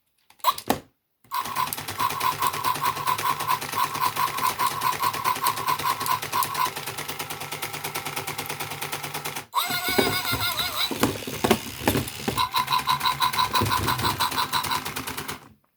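Tekno robotic puppy toy making its electronic panting sound, a fast beating pulse at about four beats a second over a buzzy, clicking whir. About two thirds of the way through, a short electronic call that slides in pitch cuts in before the panting resumes.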